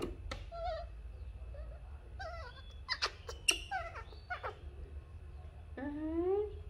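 Baby macaque squeaking and whimpering in a string of short, high calls, with a few sharp clicks in the middle, as it is laid down and stroked. A lower call that rises in pitch comes near the end.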